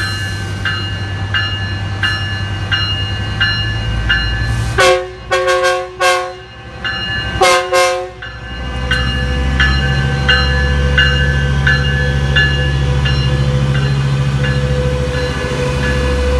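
Metrolink F125 diesel locomotive, with a Caterpillar C175 engine, moving off slowly with its bell ringing about every two-thirds of a second. It sounds its horn twice, about five and seven and a half seconds in, the first burst broken up. From about nine seconds in the diesel engine rumbles louder as it throttles up.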